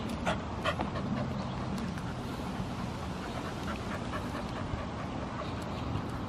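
American pit bull terrier on a leash panting, with a few short whimpering sounds in the first couple of seconds, over a low steady background rumble.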